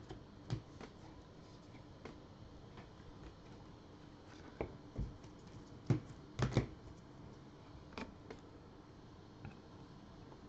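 Scattered light clicks and taps of trading cards, clear plastic card stands and a cardboard card box being handled and set down, with a cluster of louder knocks about six seconds in.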